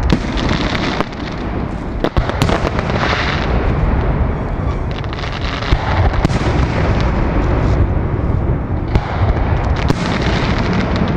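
Aerial fireworks display: a rapid, unbroken run of shell bursts, with deep booms under many sharp cracks and bangs, thickest about two to three seconds in.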